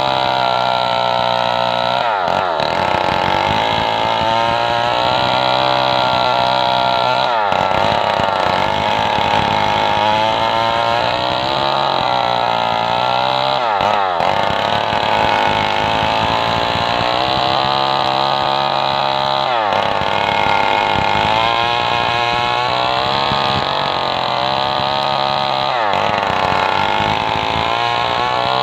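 Stihl MS 250 two-stroke chainsaw running at high revs under load while ripping a log lengthwise along the grain. The engine runs steadily, with a brief dip and recovery in its pitch about every six seconds.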